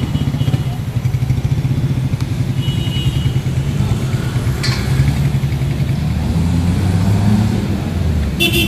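Street traffic dominated by motorcycle engines running close by, a steady pulsing rumble. A short vehicle horn toot sounds near the end.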